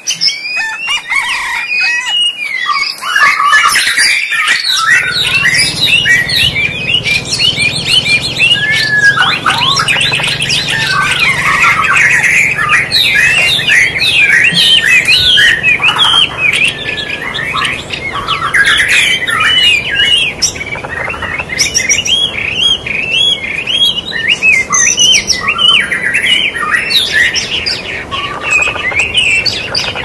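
Sparrows chirping, many short calls overlapping in a dense, continuous chatter.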